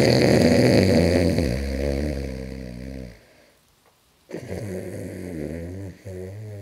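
A man snoring: one loud snore lasting about three seconds, then after a pause of about a second a second, quieter snore begins.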